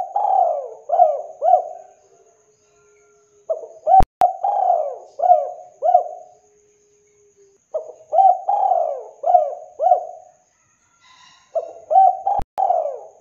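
Spotted dove (tekukur) cooing: a phrase of several coos about every four seconds, four phrases in all. Two sharp clicks come between the coos.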